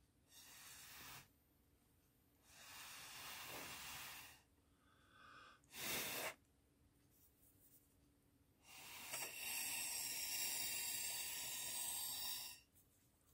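Breath blown through a drinking straw in four separate puffs: a short one, a longer one, a brief sharp one about halfway, and a long steady blow of about four seconds near the end.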